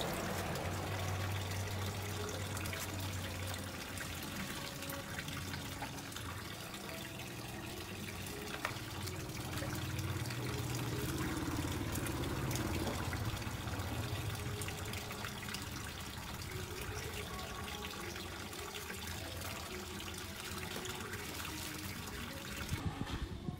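Water trickling steadily from a pipe into a small brick fish tank, with splashing as a plastic scoop is dipped into the water and lifted out.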